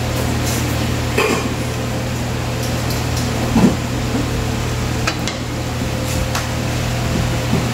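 Wooden spatula stirring in a stainless steel pot of mushrooms in sauce, with several short knocks of the spatula against the pot, over a steady low hum.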